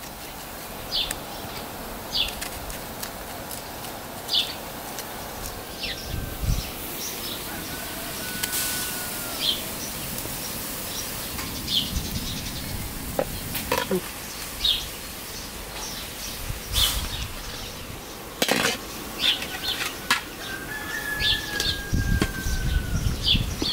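Birds chirping outdoors, a short high call repeated about once every second or so, with a few whistled glides. A few sharp clicks and knocks come through now and then.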